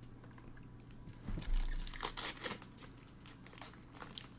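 Shiny foil wrapper of a Donruss Optic basketball card pack crinkling as gloved hands handle it, in several short crackly rustles, with a soft low bump about a second and a half in.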